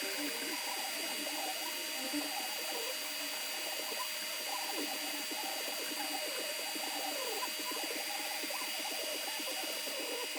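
Creality Ender 3 V2 3D printer printing: its stepper motors whine in short gliding and stepping tones that keep changing pitch as the head moves, over a steady fan hiss.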